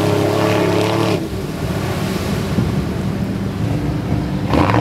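Lifted 4x4 mud truck's engine revving hard as the truck churns through mud, then easing off about a second in to a lower, rougher running, with a short rev again near the end.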